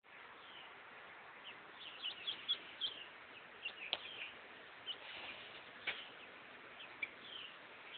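Faint, scattered high-pitched bird chirps, bunched more thickly around two to three seconds in, with two brief sharp clicks about four and six seconds in.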